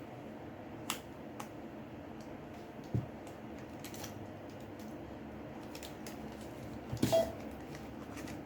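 Scattered small clicks and crackles as a Samsung Galaxy J6's glued screen is pried away from its plastic frame, with a louder crackle about seven seconds in. The cracking comes from the plastic frame giving, not from the screen.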